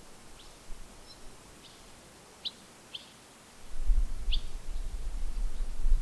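A bird chirping: about six short, high chirps spread out with pauses between them. A low rumble sets in about three and a half seconds in and is louder than the chirps.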